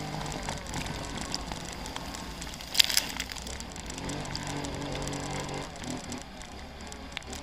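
Quad bike engine running as it drives through a shallow stream, with water splashing around it. A single sharp, loud splash or knock comes about three seconds in, and the engine note rises about four seconds in as the quad pulls up out of the water.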